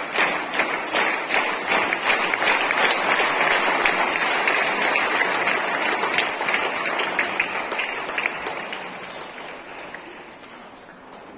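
Crowd applauding, many hands clapping at once, dying away over the last few seconds.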